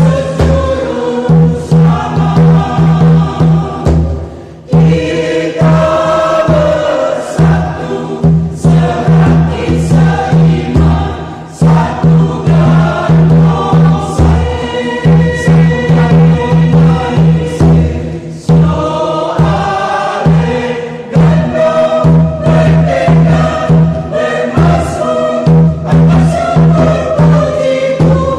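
Mixed choir singing a lively hymn in Indonesian, accompanied by a steady beat on a tifa hand drum. The singing comes in phrases with brief breaks, while the drum keeps time throughout.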